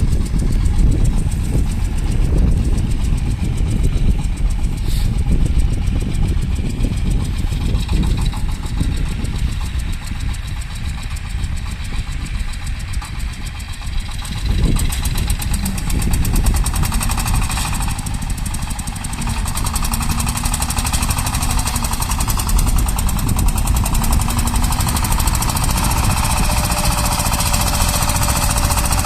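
Shifeng SF-240 mini tractor's diesel engine running hard under heavy load while driving a rotary tiller through the soil, a steady knocking rhythm that grows a little louder in the second half.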